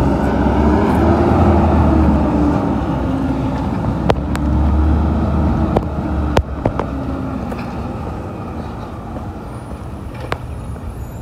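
Diesel engine of a CR&R garbage truck running as it drives away, growing fainter over the last few seconds, with a few sharp clanks along the way.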